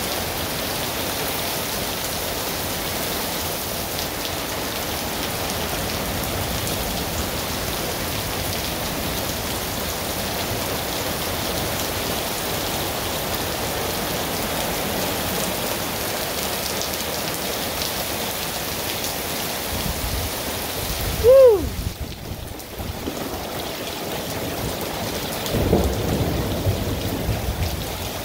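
Heavy rain mixed with hail pouring down on a paved driveway and a parked car, a steady hiss. About two-thirds of the way through comes a short pitched sound that rises and falls, the loudest moment. A low rumble of thunder follows near the end.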